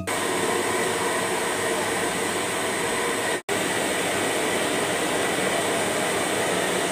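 Hand-held hair dryer blowing steadily while drying a child's hair: an even rushing hiss. It cuts out for an instant about halfway through.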